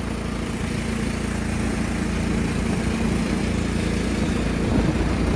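The engine of a 1999 Cub Cadet HDS 2135 riding mower running steadily at idle, warming up in the cold.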